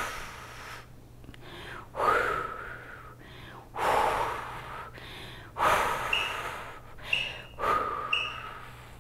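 A woman's forceful, rhythmic exhalations, four of them about two seconds apart, the breathing of effort during a core workout. Near the end, three short high beeps a second apart count down an interval timer.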